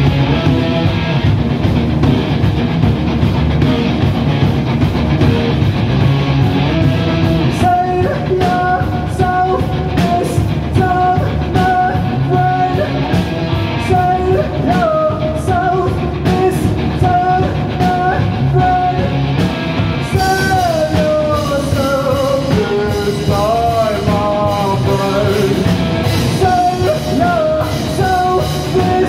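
Live rock band playing electric guitar and drum kit, with a held, bending melodic lead line coming in about eight seconds in.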